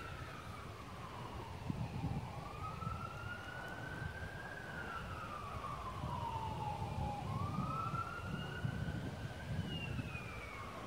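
Faint emergency vehicle siren in a slow wail, its pitch sweeping up and down several times, each sweep taking about two and a half seconds.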